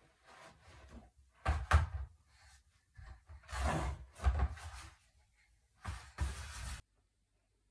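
Plastic laundry basket scraping and knocking on the floor as a baby pushes and handles it, in three rough bursts, the last cutting off suddenly near the end.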